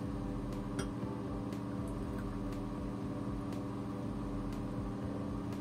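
Steady machine hum with a faint tick about once a second.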